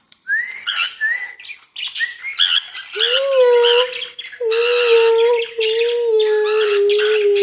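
Cockatiel and other aviary birds calling. A few short rising chirps come first, then a long, slightly wavering drawn-out note in several stretches, with squawks over it.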